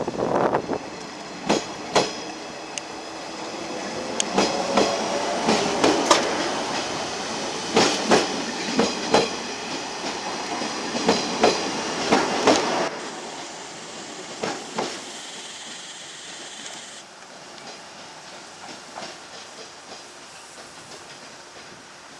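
JR East 719 series electric multiple unit moving slowly through a station yard, its wheels knocking over rail joints and points while the traction equipment gives off a layered whine. This set is known for an unusual running noise. The knocks and whine drop away after about thirteen seconds, leaving a quieter hiss with a high tone.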